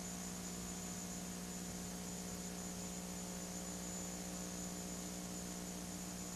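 Steady electrical mains hum with a hiss and a thin high whine over it, unchanging throughout.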